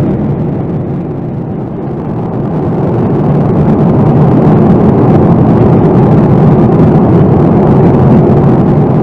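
Steady cabin noise inside a Boeing 787-9 Dreamliner in flight: the Rolls-Royce Trent 1000 engines and rushing airflow heard from a window seat behind the wing. The noise dips briefly about two seconds in, then comes back up.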